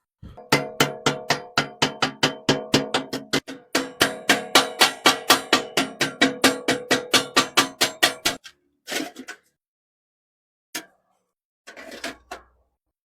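Rapid hammer blows on an aluminium pot, about four to five a second, each with a short metallic ring. They go on for about eight seconds with one brief break, then give way to a few single knocks.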